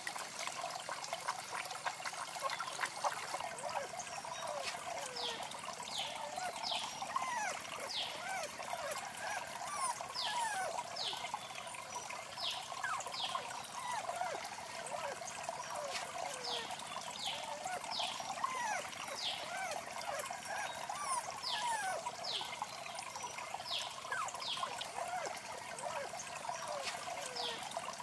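Water trickling steadily from a clay-pot fountain into a shallow pool, with short high chirps and squeaks recurring over it.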